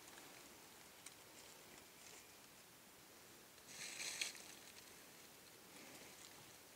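Near silence, with one brief soft rustle about four seconds in.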